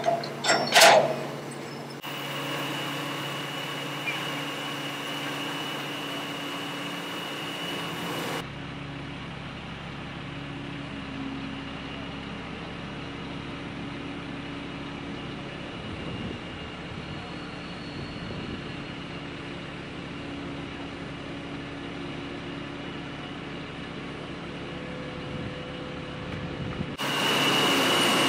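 Two metal clanks at the start, then a truck-mounted crane's diesel engine running steadily under load as it lifts a boat hull.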